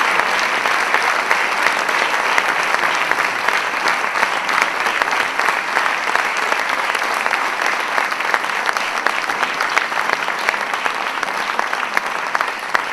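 Audience applauding: dense, steady clapping that starts to thin out right at the end.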